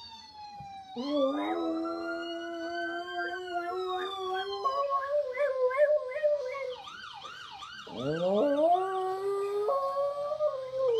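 A dog howling along with a vehicle siren. The howl is a long pitched call that bends slowly, and the siren wails, then switches to a rapid up-and-down yelp partway through before rising again.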